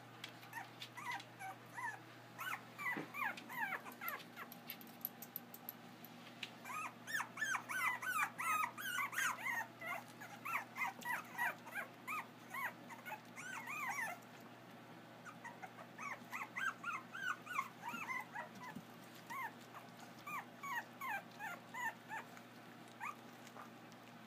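Puppies whining and yipping in excitement before being fed: many short high calls that fall in pitch, several a second and overlapping, busiest in the middle with a brief lull just past halfway.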